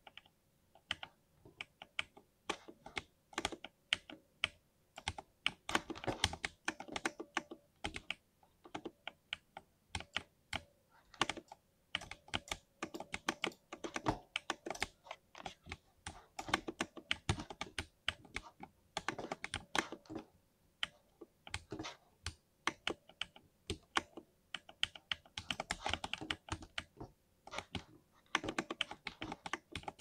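Typing on a 60% mechanical keyboard with lubed switches: quick runs of key clicks and clacks, broken now and then by short pauses.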